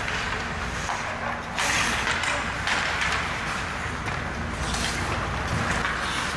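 Ice hockey skate blades scraping and carving on the rink ice in repeated bursts of hiss, with sticks and puck clacking.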